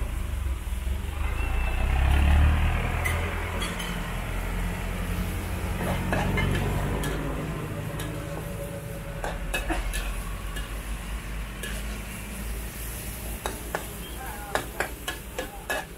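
Food sizzling in a wok as it is stir-fried, over a steady low rumble. From about halfway, a metal ladle or spatula knocks and scrapes against the wok, in quick clicks near the end.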